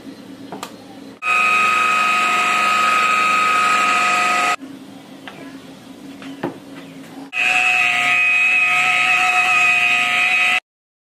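Electric polisher buffing car paint, a steady high whine with several fixed tones, in two spells of about three seconds each that start and stop abruptly. Between them there is a quieter low hum with a few clicks.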